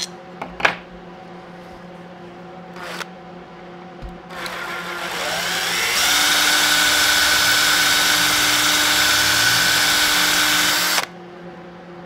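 A few light handling clicks, then a cordless Makita drill spins up about four seconds in, rising in pitch. It runs steadily for about five seconds as a twist bit enlarges the screw hole in a bakelite pistol grip, then stops abruptly near the end.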